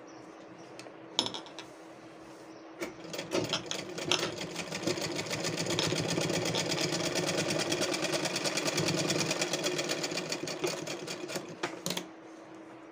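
Sewing machine stitching: it starts up about three seconds in, speeds up into a rapid, even run of stitches, then slows and stops near the end. It is sewing long basting stitches that tack down the folded neckline facing.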